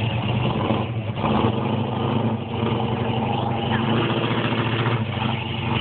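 Lifted Chevy 4x4 pickup's engine running steadily as the truck drives through a shallow water hole in sand.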